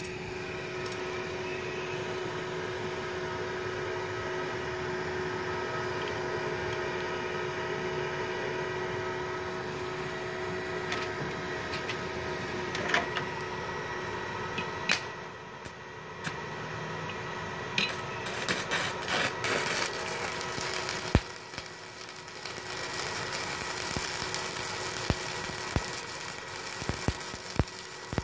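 A steady machine hum, then a few sharp clicks. From about two-thirds of the way through, a 4 mm E6013 stick electrode arc welding with a sizzling, crackling hiss.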